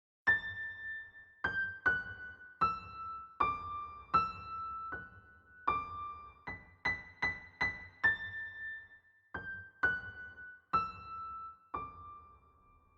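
Background music: a solo piano playing a slow melody of single struck notes, each ringing and fading, mostly stepping downward, with the last note held and dying away near the end.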